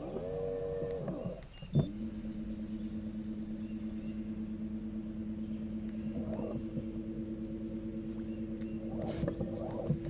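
Electric trolling motor moving a boat: a brief whine that rises and falls, a click, then a steady hum as it runs.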